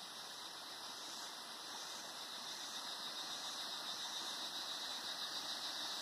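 Cicadas singing together in a continuous high-pitched buzz that grows gradually louder.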